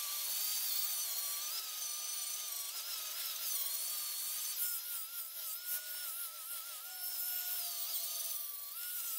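Angle grinder with a woven-fibre Scotch-Brite flap disc running against the steel face of an anvil, giving it a finishing pass. Its motor whine wavers up and down in pitch over a steady grinding hiss.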